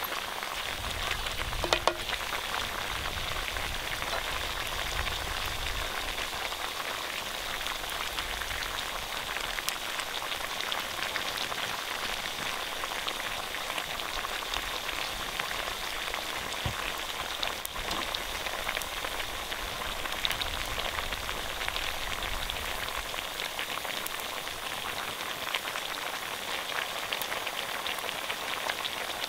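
Pork frying in a pan over a fire: a steady sizzle with fine crackles.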